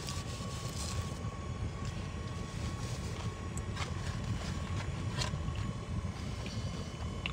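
Steady low rumble of a car cabin with the engine running, with a faint steady high tone and a few faint clicks.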